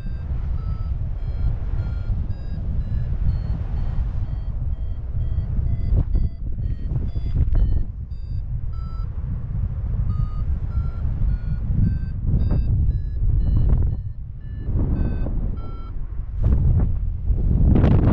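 A steady low rumble with a run of short electronic beeps over it, about two to three a second, each at a different pitch like a simple tune.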